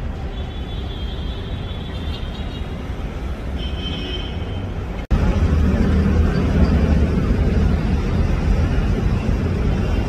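Steady road traffic noise, a low rumble of passing vehicles, with a few faint high-pitched tones in the first half. After a brief break about halfway, the rumble comes back louder.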